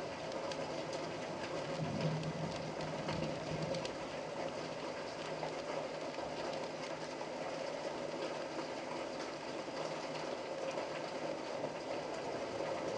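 Steady rain falling, a constant hiss scattered with small ticking drips.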